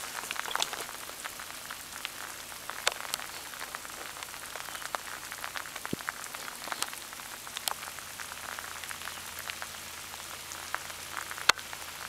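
Rain pattering steadily, with many scattered sharper taps of single drops.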